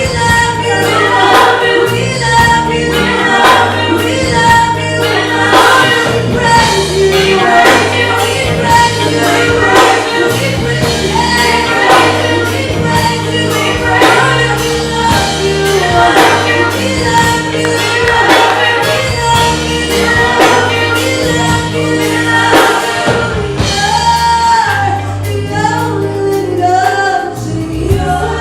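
Gospel choir singing with band accompaniment: sustained bass notes under the voices and a steady beat.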